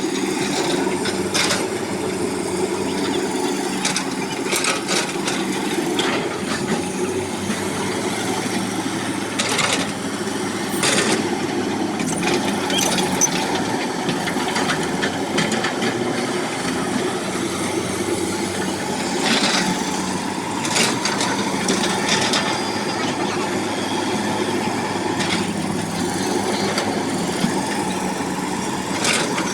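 Diesel excavator engine running steadily under work, with scattered sharp knocks and clanks throughout.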